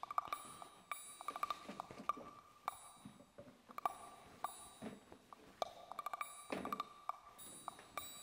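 Quiet background music: short, light, bell-like notes over a faint held tone.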